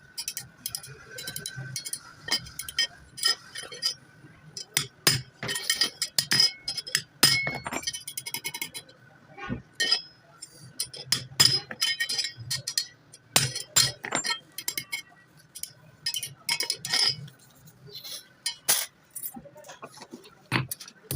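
Hard metal tools and parts clinking and knocking at irregular intervals, with a faint steady high tone underneath.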